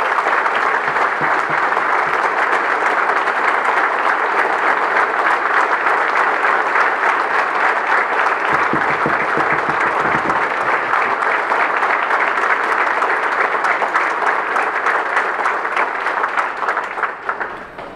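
Audience applauding: dense, steady clapping from a large crowd that tapers off near the end.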